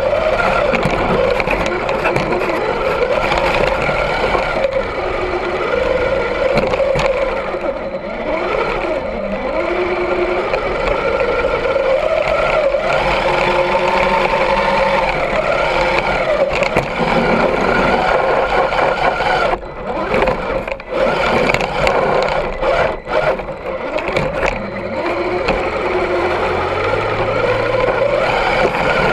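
Axial SCX10 II RC crawler's electric motor and geared drivetrain whining, rising and falling in pitch with the throttle as it drives through snow, heard up close from a camera on the truck. The whine drops out briefly a few times about two-thirds of the way through.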